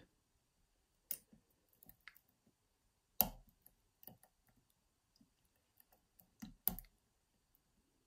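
Lock pick working the pins inside a Ruko rim cylinder lock: a few faint, sparse metallic clicks, the sharpest about three seconds in and a close pair near the end.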